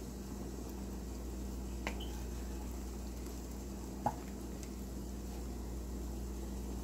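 Wooden spoon stirring a thick, simmering chicken curry in a pot, with a wet squishing of the sauce and a couple of light knocks of the spoon against the pot, about two and four seconds in, over a steady low hum.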